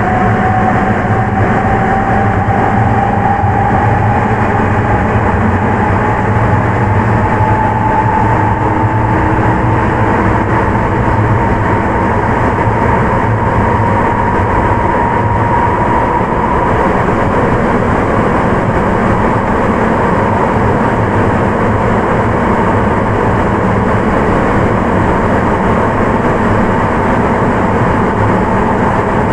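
Sapporo Municipal Subway 9000 series train running, heard from inside the car: a steady rumble of its rubber tyres in the tunnel. The whine of its Hitachi IGBT-VVVF traction inverter rises slowly in pitch as the train gathers speed over the first fifteen seconds or so, then fades into the running noise.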